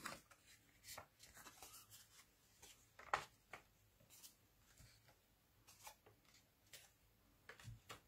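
Faint handling of a card panel on a craft mat: a few soft rustles and taps as the card is pressed into wet ink and lifted off again, the clearest about three seconds in.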